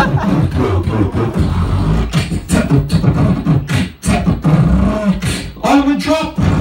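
A person beatboxing into a handheld microphone: a fast run of vocal drum sounds over deep bass, with a brief break about four seconds in.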